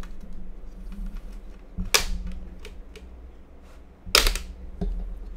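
Plastic display bezel of a Lenovo Y50 laptop being lifted off the screen, with two sharp plastic snaps, about two seconds in and about four seconds in, as its clips let go, and a few lighter ticks between.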